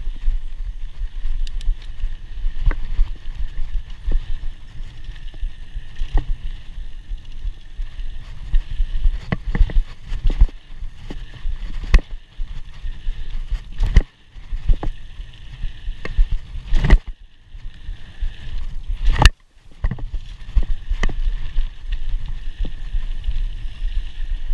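Scott Scale 960 hardtail mountain bike ridden along a dirt trail, heard from a chest-mounted action camera: wind on the microphone and tyres rumbling over the dirt, with frequent rattling knocks as the bike hits bumps. Two louder jolts come in the second half, each followed by a brief drop in level.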